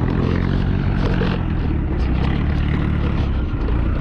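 Motorcycle engine running steadily while riding, under a steady rush of noise.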